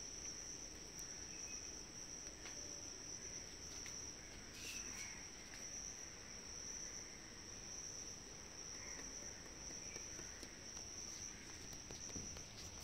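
Insects trilling in one steady high-pitched tone with no break, with a few faint clicks over it.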